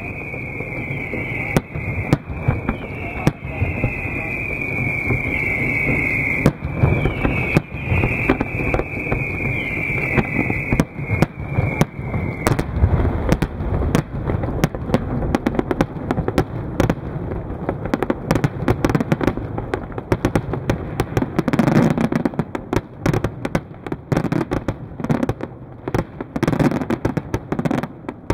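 Fireworks display: sharp bangs and crackle of bursting aerial shells. For roughly the first half there is also a high whistling tone that falls slightly in pitch and keeps restarting; after that the bursts come thick and fast.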